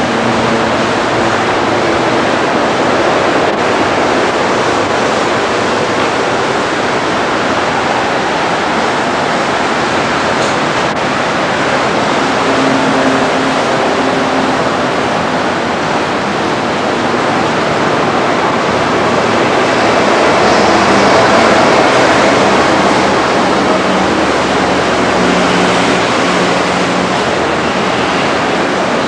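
Steady rumbling rush of an old Sydney single-deck "red rattler" electric train running over the steel bridge approach, swelling a little about two-thirds of the way through.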